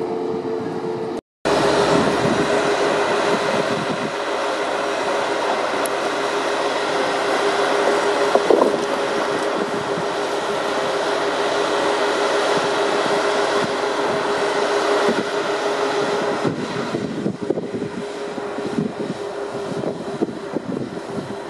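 Timberpro TF840B forwarder working: a steady machine noise from its engine and hydraulics, with a steady whine, as the crane handles logs. The sound cuts out completely for a moment a little over a second in, and there is one short louder clunk about eight seconds in.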